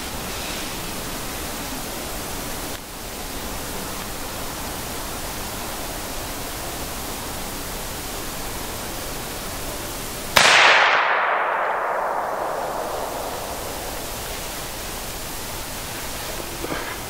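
A single shotgun shot about ten seconds in, sudden and loud, its echo dying away over about three seconds, over a steady background hiss.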